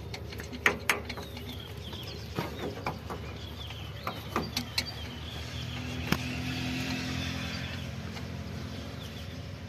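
Scattered light metal clicks and clinks as a tractor's hydraulic spool control valve is worked loose and lifted off its cast-iron mounting, over a steady low engine hum that swells for a few seconds in the middle.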